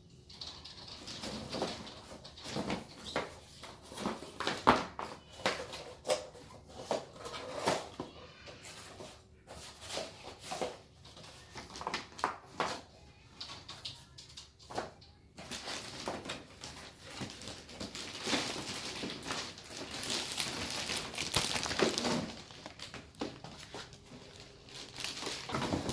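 Cardboard and plastic packaging handled during an unboxing: scattered knocks and clicks, then a stretch of steady rustling from about halfway through.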